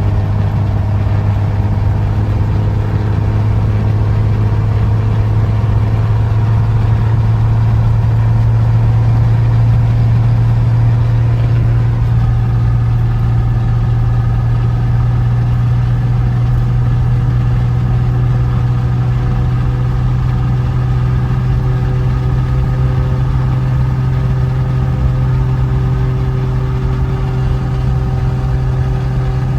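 Piper Lance's six-cylinder Lycoming piston engine running steadily at low power, its speed stepping up slightly about twelve seconds in.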